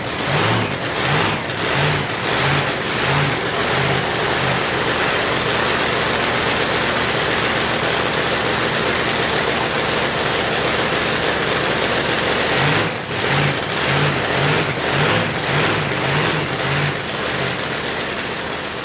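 Supercharged Pontiac V8 drag-racing engine running loud, with a rhythmic lumpy lope at the start and again from about 13 seconds in.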